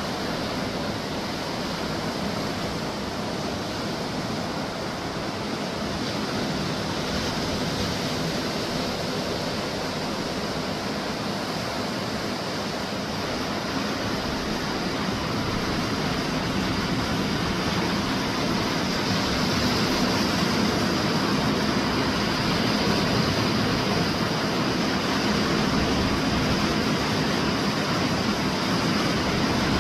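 Gulf surf washing onto a sandy beach, a steady rushing noise that grows a little louder in the second half.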